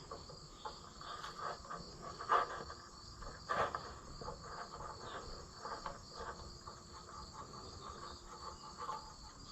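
Crickets chirping steadily in the background, with scattered faint clicks and taps of wrench work on the valve adjusters.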